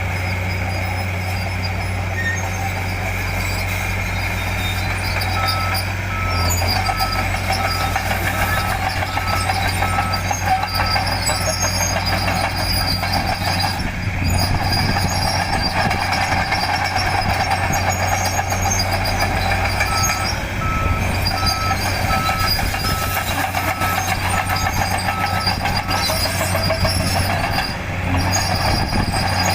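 Small bulldozer's diesel engine running steadily with a constant low drone. Its back-up alarm beeps evenly at about two beeps a second in two spells, one about a fifth of the way in and another about two-thirds of the way in, the signal that the machine is travelling in reverse.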